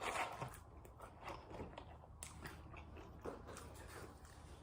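Close-up chewing and biting of McDonald's french fries: soft, irregular crunching and mouth sounds, a louder bite right at the start.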